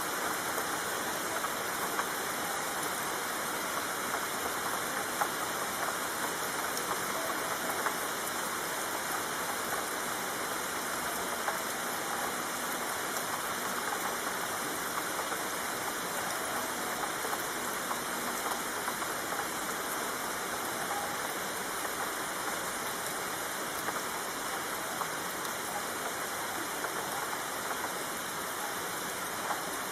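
Steady rainfall: an even hiss of rain with scattered sharper drop hits.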